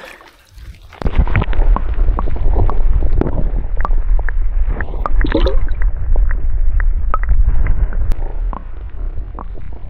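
Underwater sound of a shallow river heard through a submerged camera: a sudden switch about a second in to a loud, muffled low rumble and gurgle of flowing water, with scattered clicks and knocks.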